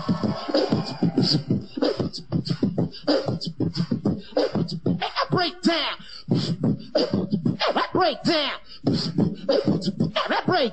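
Beatboxing: a fast run of mouth-made drum beats, all by voice, with swooping pitched vocal sounds woven in from about halfway through.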